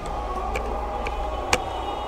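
A few separate computer keyboard key clicks over a steady low hum, the sharpest click about one and a half seconds in.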